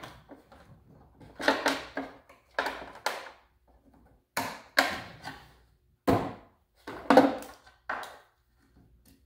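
Hands working parts and a tool inside a model boat hull: a string of about half a dozen sudden knocks and clatters, the loudest about seven seconds in.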